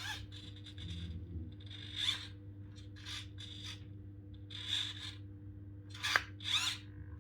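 A 1/16 scale RC bulldozer working: several short bursts of scraping and small-motor whir over a steady low hum.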